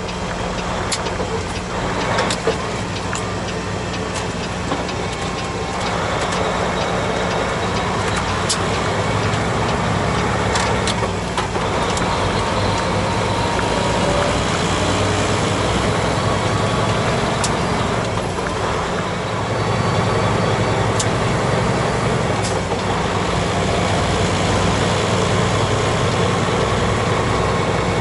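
Semi-truck's diesel engine running steadily under way, heard from inside the cab along with road noise and a few light clicks and rattles. The engine gets a little louder about six seconds in.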